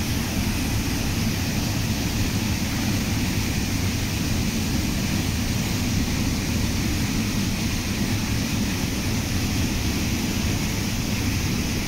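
Steady rushing of river water flowing over rocks and rapids, a constant even noise with a deep rumble underneath.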